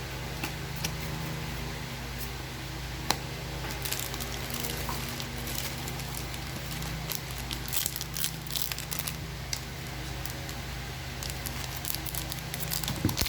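Plastic booster pack wrappers crinkling and trading cards being handled, with scattered small clicks and rustles that get busier after a few seconds, over a steady low hum.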